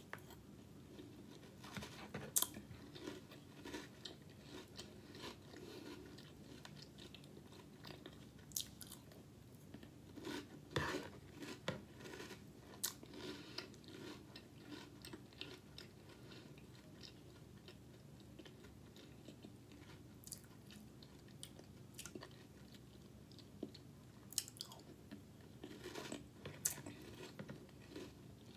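Close-up chewing and crunching of a mouthful of cereal in milk, soft and irregular, with a few sharp clicks scattered through it.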